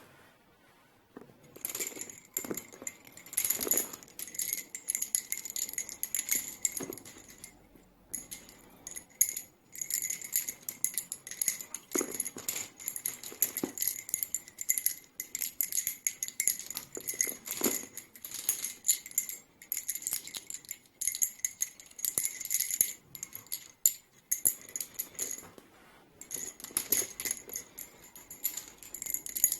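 Wooden lace bobbins of palo violeta wood, made by Carmelo Badalona, clacking against each other in quick runs of clicks as they are worked, with short pauses between runs. Each clack has a bright, high ring.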